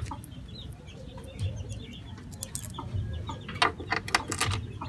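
Chickens clucking in the background, with a cluster of sharp metallic clicks near the end as a bolt is fitted by hand and handled with a socket tool.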